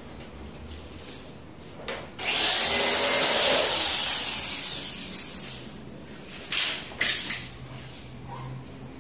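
Corded electric drill driving a screw through the aluminium sliding-door head track into the jamb: the motor runs loud for about three seconds, starting about two seconds in, then winds down with a falling whine. Two sharp knocks follow a second later.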